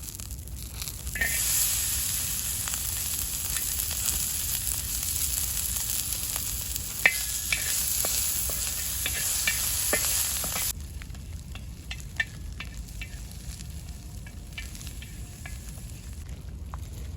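Food sizzling as it fries in hot oil: loud for about nine seconds from a second in, then dropping sharply to a quieter sizzle, with scattered clicks of a utensil stirring.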